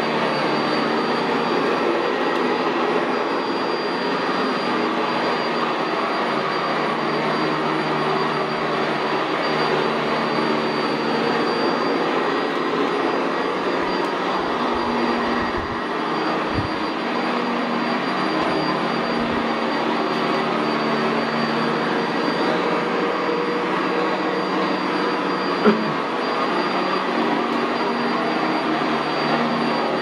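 Sanitaire SC679J commercial upright vacuum cleaner with a Vibra-Groomer II brush roll, running steadily as it is pushed over carpet, its motor giving a constant whine. A single sharp click comes a few seconds before the end.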